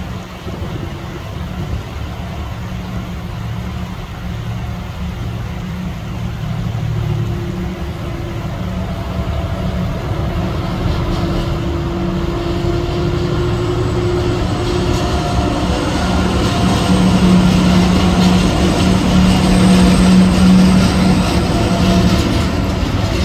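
Two TasRail TR class diesel-electric locomotives hauling a freight train across a concrete bridge, their engine drone growing steadily louder as they approach and pass close by, peaking shortly before the end.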